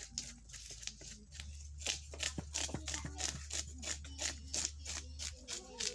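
Kitchen knife scraping scales off a whole milkfish laid on a stone slab: quick repeated raspy strokes, two or three a second. A low steady hum sounds underneath through the middle few seconds.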